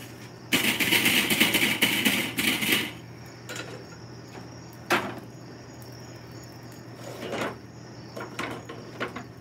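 Metal tongs scraping and raking burning charcoal in a kettle grill for about two and a half seconds, then a few separate clanks and knocks as a foil pan is handled on the grill. Faint steady chirping of insects behind.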